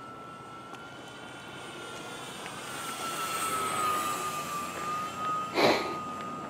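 Radio-controlled model airplane making a low pass overhead: its motor and propeller give a steady high whine that grows louder as the plane comes over, then drops slightly in pitch as it goes by. A brief loud rush of noise comes near the end.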